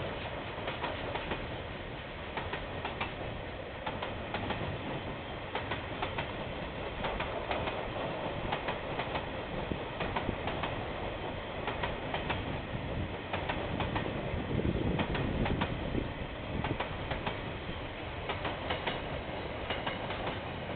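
A KiwiRail train's wagons rolling past, the wheels clicking steadily over the rail joints, a little louder about fifteen seconds in. Heard through a security camera's microphone, dull with no high end.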